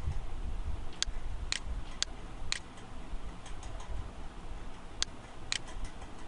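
Computer mouse clicking: four sharp clicks about half a second apart, then two more near the end, over a steady low background hum.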